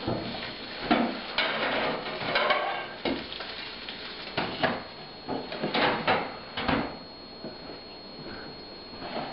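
Kitchenware clattering: an irregular run of knocks and clinks over the first seven seconds, then quieter, over a faint steady high-pitched whine.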